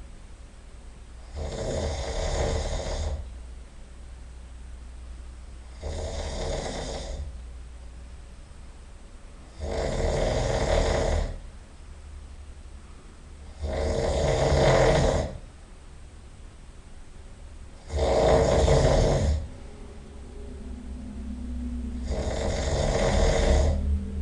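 A sleeping person snoring loudly: six long snores about every four seconds, each lasting one to two seconds, the last one longer and swelling.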